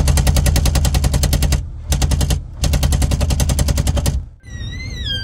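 Car's passenger-side power window clattering in very rapid, even strings of sharp clacks, like a machine gun: a long burst, a short one and another long one, stopping a little after four seconds in.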